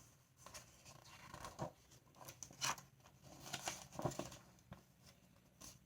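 Faint paper rustling and a few light ticks as a picture-book page is handled and turned.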